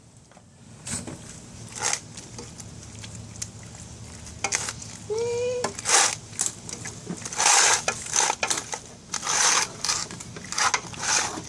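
Kitchen clatter while cooking: metal utensils and dishes clinking, knocking and scraping, with a run of repeated scraping strokes in the second half.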